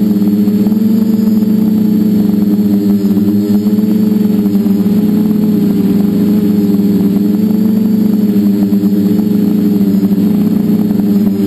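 Multicopter's electric motors and propellers humming steadily in flight, the pitch wavering slightly as the motor speeds shift.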